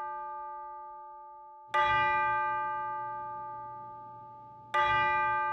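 A large bell tolling slowly. Two strokes come about three seconds apart, near two seconds in and near the end, and each rings out and fades away.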